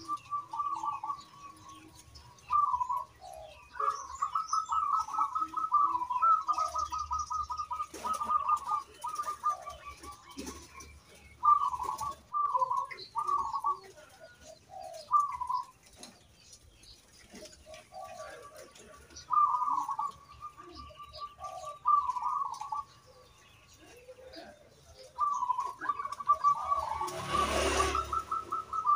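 Caged zebra dove (perkutut) cooing in repeated phrases of quick rolling notes, with pauses of a second or more between them. A short burst of rushing noise sounds just before the end.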